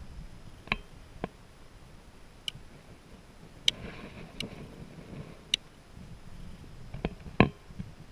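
Plastic rocker switches on a boat's marine switch panel clicking about eight times at irregular intervals, with the loudest click near the end, over a faint low rumble.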